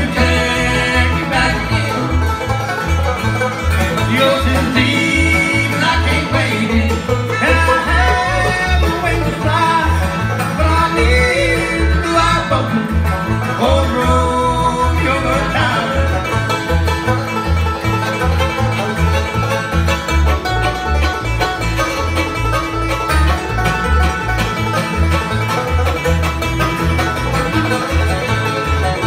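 Live bluegrass band playing: banjo, acoustic guitar and fiddle over a steady pulse from the bass.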